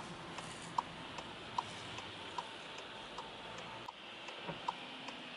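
A car's turn-signal indicator ticking inside the cabin, an even tick-tock of about two to three clicks a second over a faint steady hum.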